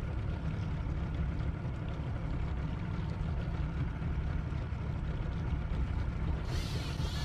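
Steady low rumble aboard a fishing boat on the water, with a brief hiss in the high range near the end.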